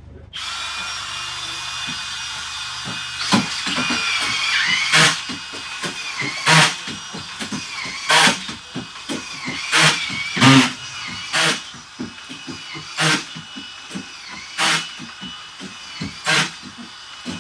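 Hilti ST 2000-22 cordless screwdrivers running at speed, one of them on a stand-up extension, with a steady high motor whine. The whine dips in pitch as each screw is driven and ends in a sharp crack, about ten times at roughly one every second and a half.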